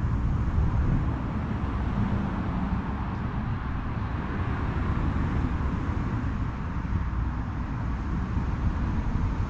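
Wind buffeting the microphone outdoors, a steady low rushing noise with no clear events in it.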